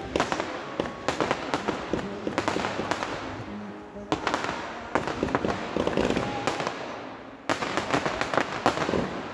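Fireworks display: a dense run of bangs and crackling from shells, comets and crackling stars bursting in quick succession. New loud volleys start about four seconds in and again about seven and a half seconds in.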